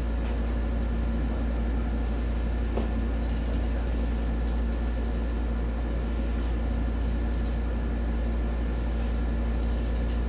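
Steady low hum, unchanging throughout, with faint short high hisses now and then.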